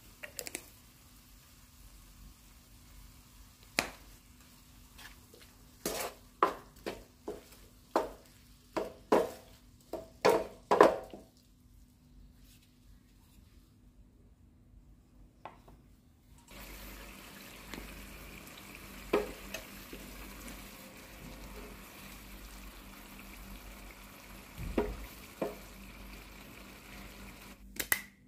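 A utensil knocking and scraping against a nonstick frying pan while diced tomatoes and onions are stirred, with a quick run of knocks at about two a second. Then the tomatoes and onions sizzle steadily in the pan, with a few more taps.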